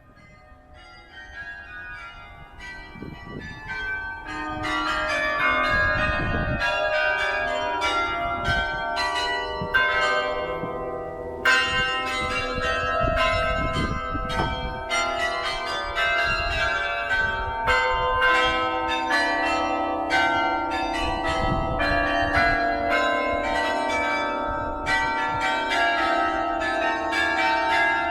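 The carillon bells of St Pierre Cathedral in Geneva playing a tune: many quick bell strikes ringing over one another. It starts faint and builds to full loudness over the first few seconds.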